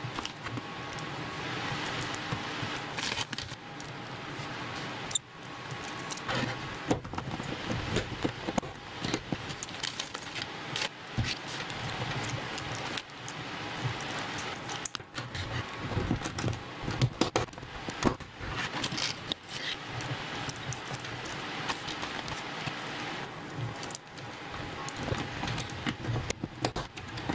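Hand assembly of small parts: servo horns and tiny screws being handled and driven with a precision screwdriver into a robot kit's frame. It makes continuous rustling with many light clicks and rattles of small metal and plastic pieces.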